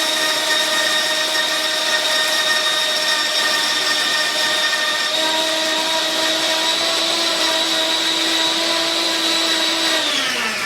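Goldtouch 1500 W electric grain mill's high-speed motor running steadily with a whine while grinding oats into flour, then spinning down with a falling pitch near the end as the timer stops it.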